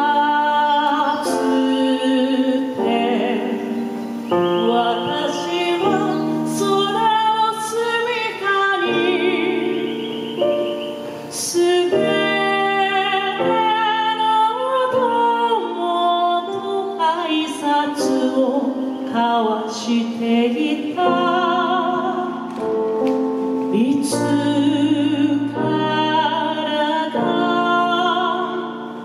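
A woman singing into a microphone through a PA, with clear vibrato on held notes, over instrumental accompaniment that includes piano.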